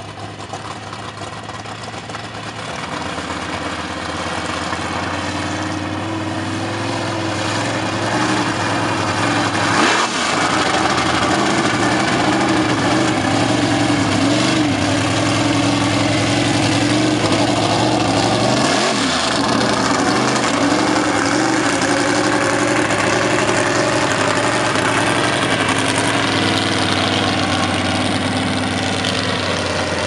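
Lifted mud-bog pickup truck's engine revving hard as it drives through a mud pit, growing louder over the first several seconds as it comes closer. The engine note wavers up and down, and twice, about ten and nineteen seconds in, it dips sharply and climbs straight back.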